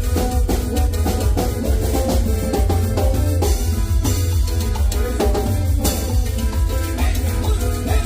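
Instrumental Latin dance music with a busy drum kit and heavy bass, no singing.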